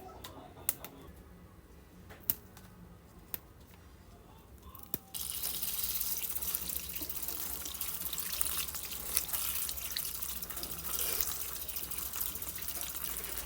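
A few light clicks and knocks, then about five seconds in water starts running from a tap, a steady splashing flow that carries on.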